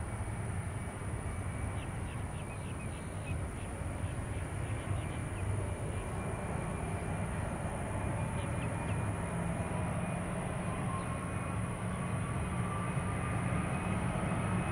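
Jet airliner engines heard at a distance: a steady low rumble, with a faint whine that rises slowly in pitch through the second half.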